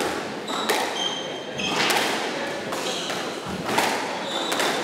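Squash ball cracking off racquets and the court walls in a doubles rally, a sharp echoing hit about every second, with trainers squeaking on the wooden court floor between shots.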